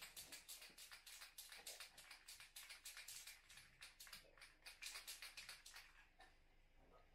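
Aerosol spray can being shaken, its mixing ball rattling fast and evenly, about six rattles a second, mixing the paint before spraying; the shaking stops about six seconds in.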